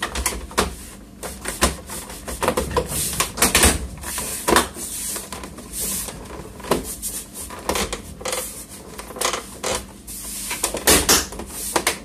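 Plastic rear cover of an HP TouchSmart 320 all-in-one PC pressed down hard by hand, its clips snapping into place in a string of irregular clicks and knocks.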